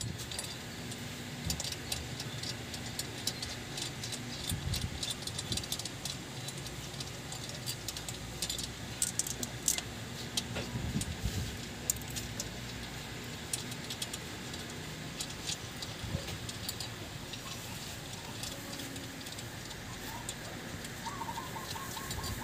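Scattered small metallic clicks and clinks of hands working at the flywheel's centre bearing, over a steady low hum.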